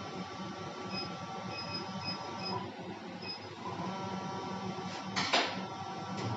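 Plastic injection molding machine running with a steady hum, with faint short high tones in the first half. A short hiss comes about five seconds in.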